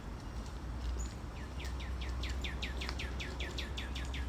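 A songbird singing a fast, even run of repeated down-slurred whistled notes, about five a second, starting about a second in, over a steady low rumble.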